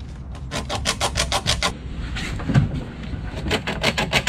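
A felt-tip marker pen scribbling on bare wood in rapid back-and-forth strokes, about eight a second, marking out the mortise areas around cardboard templates. It comes in two runs with a short pause about two seconds in.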